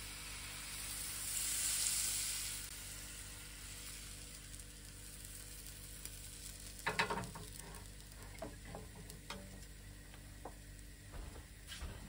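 Thin pancake batter sizzling as it is poured into a hot, oiled pan: the hiss swells over the first two seconds, then settles to a quieter steady frying. About seven seconds in there is a short clatter of knocks, followed by a few light clicks.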